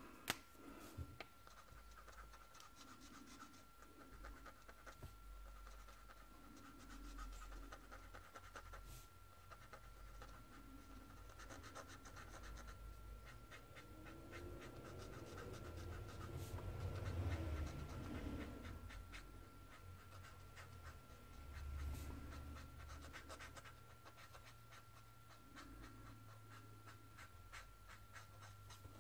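Faint scratching of a brush marker's tip on kraft paper as wing areas are coloured in, with slow breathing close to the microphone every few seconds. A thin steady high tone hums underneath.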